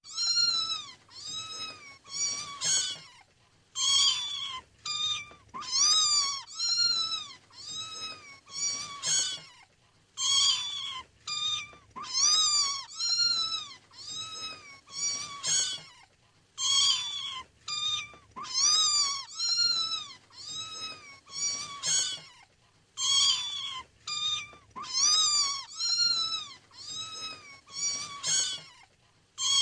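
A kitten meowing again and again: short, high-pitched meows that rise and fall, about one or two a second, in runs with short pauses between them. The same run of meows repeats about every six and a half seconds.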